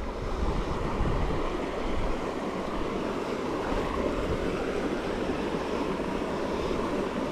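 Steady rushing noise of a small creek's flowing water, swelling over the first second and then holding even.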